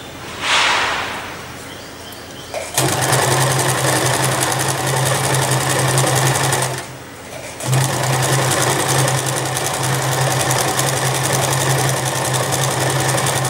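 Electric domestic sewing machine stitching cotton fabric. After a short swish near the start, it runs steadily for about four seconds, stops for under a second, then starts again and keeps running.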